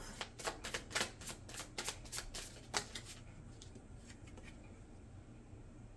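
Tarot cards being shuffled by hand: a quick run of crisp card clicks for about three seconds, thinning to a few faint taps.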